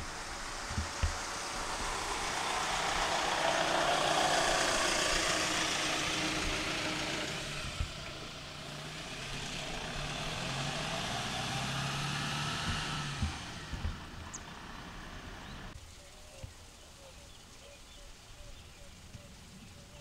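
A motor vehicle driving past, its sound swelling and fading over several seconds, then swelling and fading a second time with a low engine note. It dies away about three-quarters of the way through.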